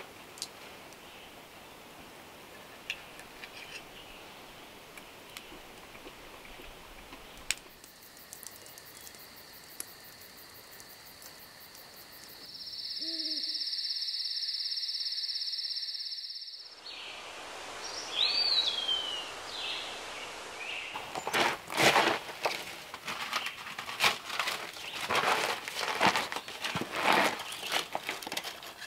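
Quiet forest ambience with a few light clicks gives way to a steady, high night-insect chorus. An owl hoots low about thirteen seconds in. A bird gives a short rising-and-falling call, then a run of knocks and clatter comes from someone working at an outdoor stone oven.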